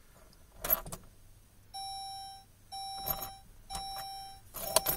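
Saab 9-3 dashboard warning chime, a steady electronic tone repeating about once a second, four tones of under a second each. A few sharp clicks come before and between the tones, the loudest within the first second.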